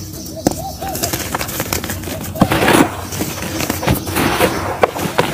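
Hands crushing and crumbling lumps of dry mud: a stream of sharp crunches and crackles, with a thicker gritty rustle of crumbs being rubbed together around three and four seconds in.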